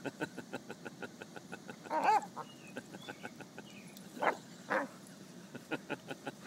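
Dog making its "monkey sounds": one arching, rising-and-falling whoop about two seconds in and two short huffs around four to five seconds, over a fast, even run of short ticks.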